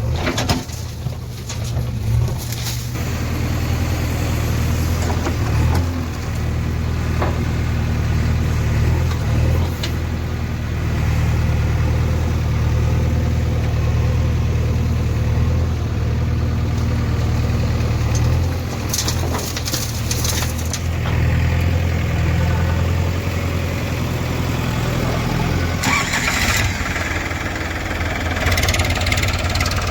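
Heavy diesel engine running steadily at a low, even note, with a short rush of noise near the end.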